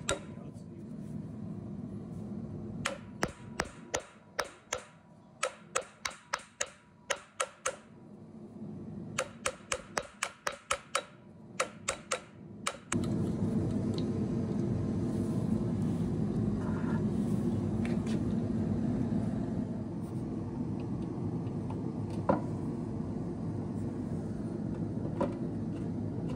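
Sharp metal taps in short runs, a few a second, as the cast V-belt pulley is tapped down onto the new electric motor's keyed shaft to press-fit it. About thirteen seconds in the taps stop and a steady low background noise takes over.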